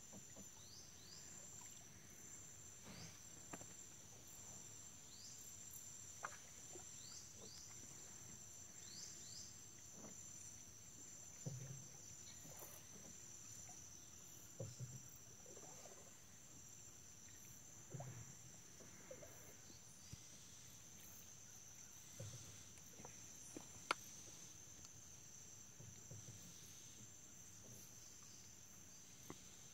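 Faint, steady high-pitched drone of insects at dusk, with a few short falling chirps early on. From about the middle, soft low knocks of the wooden boat come every three to four seconds.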